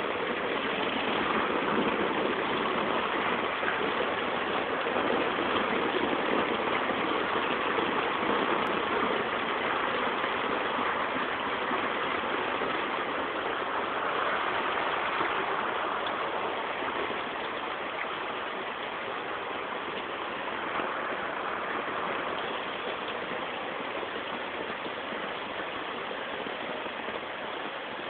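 Heavy rain pouring onto flooded street water and floodwater flowing past, a steady rushing hiss that eases slightly after about halfway.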